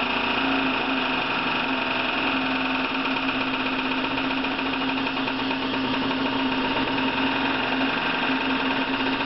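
Servo-hydraulic test machine running: a steady hum with one constant pitched tone over a hiss, as its hydraulic grip shakes a clamped thin strip to drive it into resonance.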